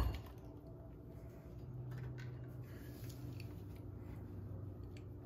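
A short clack at the very start as a knife is set down on a plastic cutting board. Then soft, quiet handling noise follows, with a few faint clicks, as gloved hands lift and shake a raw squid bait rigged on a leader.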